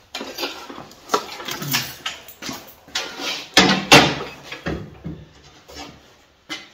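Clattering knocks and scraping as a miter saw is set down and shifted on a wheeled steel frame made from a commode chair, with the loudest knocks about three and a half to four seconds in.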